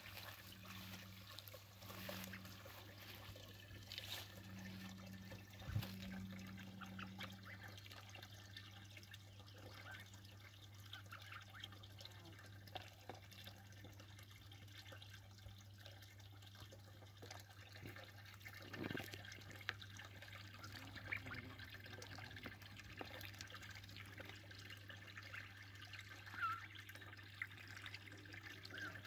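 Faint trickle of water from a garden hose running into a shallow plastic tub, with small drips and splashes.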